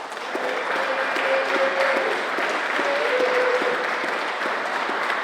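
Audience applauding at the end of a song, a steady crowd of hand claps.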